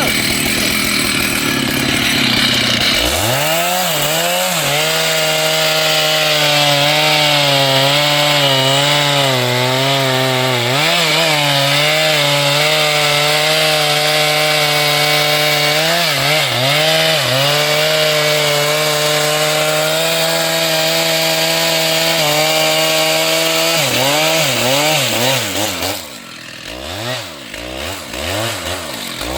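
Large two-stroke chainsaw revving up about three seconds in and cutting wood at full throttle, its pitch dipping and wavering as the chain bites under load. Near the end the throttle drops, and the saw is revved up and down several times.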